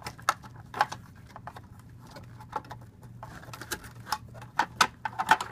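Irregular plastic clicks and taps as the black plastic cooling shroud inside a Cisco ASA 5515-X firewall chassis is handled and lifted out, with a quick cluster of sharper clicks near the end.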